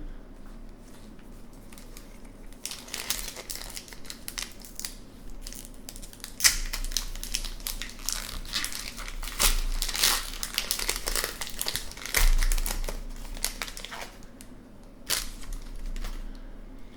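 A foil hockey card pack wrapper (2020-21 Upper Deck SP Hockey) crinkling and tearing as it is ripped open and handled. The crackling is irregular, busiest from about three seconds in to about fourteen seconds in, with one more burst near the end.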